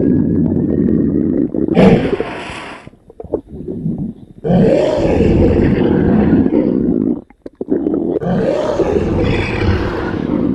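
Exaggerated cartoon stomach growl sound effect: loud, deep, roaring rumbles in three long swells, with short dips between them.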